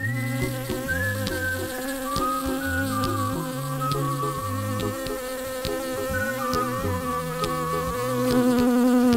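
Bee buzzing as a steady drone that grows louder near the end, over light background music with a stepping low line.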